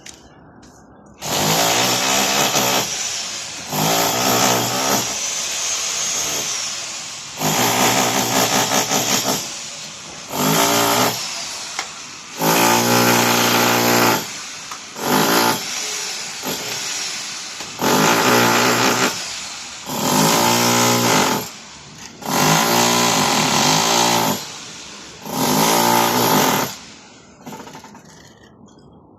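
Electric power tool run in about ten bursts of one to two seconds each, its motor pitch bending as it works, with short pauses between.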